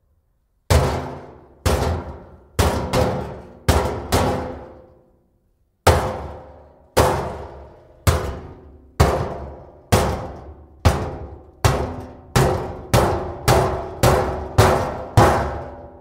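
Empty steel barrel banged over and over, each hit ringing out in a reverberant room. A quick cluster of about six bangs, a pause, then a series that speeds up from about one bang a second to about two a second near the end.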